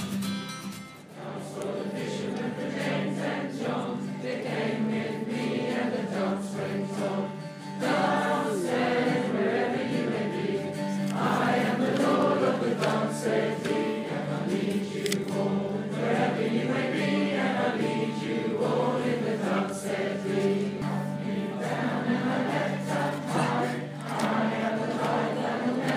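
Background music: singing over a steady, sustained low drone.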